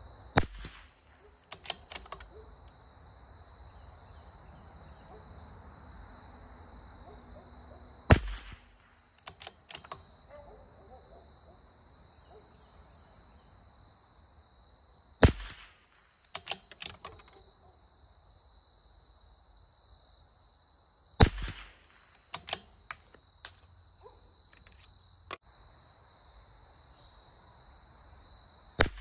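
A CZ 457 Varmint .22 LR bolt-action rifle firing five shots, one every six to eight seconds, each a sharp crack, with lighter clicks of the bolt being worked between shots. A steady high insect drone runs underneath.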